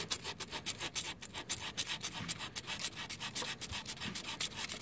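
Folded 150-grit sandpaper rubbed by hand back and forth on a painted metal scooter frame tube, quick rasping strokes about six a second, scuffing off rust ahead of touch-up paint.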